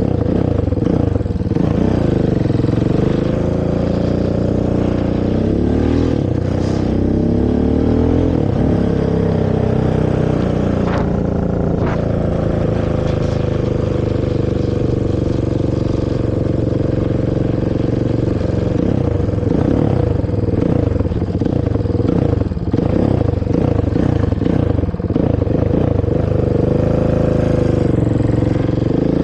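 Honda TRX450R quad's single-cylinder four-stroke engine on its stock exhaust, revving up and falling back again and again as it is ridden.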